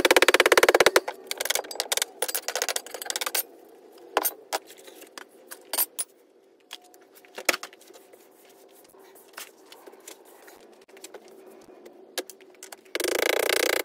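Rubber mallet pounding Petrobond oil-bonded casting sand in a steel flask in rapid blows, then scattered light clicks and knocks as the sand and flask are handled. Another burst of rapid knocking comes near the end.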